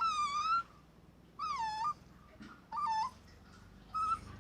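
Dog whining: four high, drawn-out whines about a second apart, most dropping in pitch at the end.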